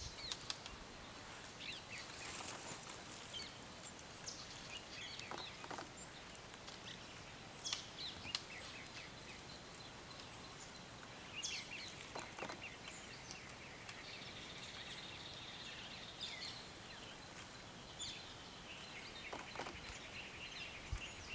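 Open-country ambience with a faint steady hiss and small birds calling now and then: scattered short high chirps, a longer run of calls about two-thirds of the way through, and a few brief clicks.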